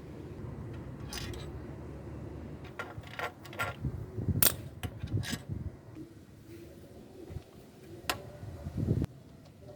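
Metal clicks and clinks as parts of a removed electric power steering column are handled and taken apart, a quick cluster of them a few seconds in, one more click later and a thump near the end.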